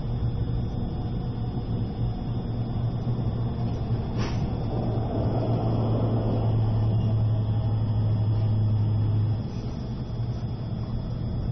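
Interior running noise of an E653 series electric train moving slowly: a steady low hum with rumble underneath, a single sharp click about four seconds in, and the hum dropping away about nine seconds in.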